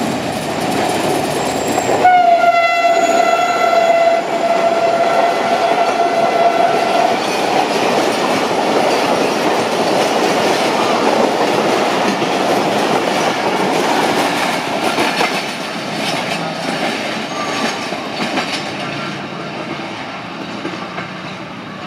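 Diesel-hauled express passenger train passing at speed. The locomotive sounds one long, steady horn blast of about five seconds, starting some two seconds in. Then the coaches rush past in a dense rumble that fades in the last few seconds as the train draws away.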